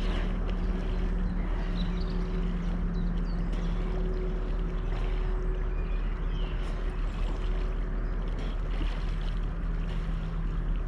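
A steady engine hum holding one low pitch, with wind rumbling on the microphone.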